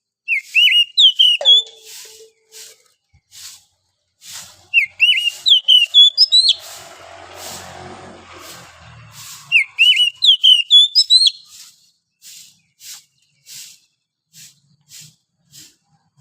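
Oriental magpie-robin singing: three loud phrases of quick, clear whistled notes, with short sharp high chirps between them. A brief rushing noise comes in midway.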